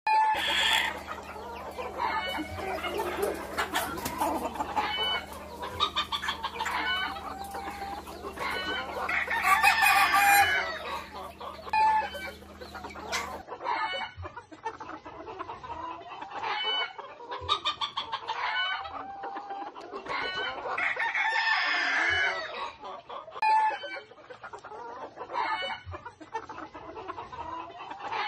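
Fancy bantam chickens clucking and calling, with a rooster crowing about ten seconds in and again about twenty-one seconds in. A steady low hum runs under the first half and stops at a cut about halfway through.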